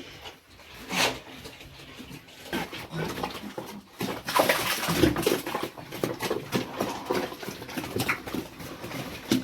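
Domestic animals calling, with whines and squeals and scuffling noises. The calls grow louder and busier about four seconds in.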